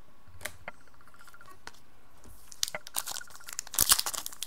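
Plastic wrapper of a trading-card pack being torn open and crinkled, starting about halfway in and getting louder near the end. A few light clicks come before it as the cards are handled.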